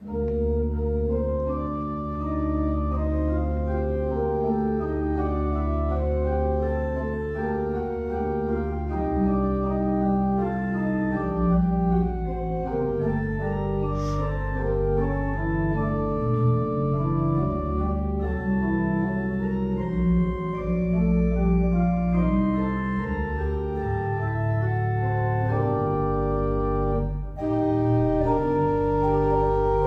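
Organ prelude: slow, held chords over a deep, sustained pedal bass, the chords changing every second or two.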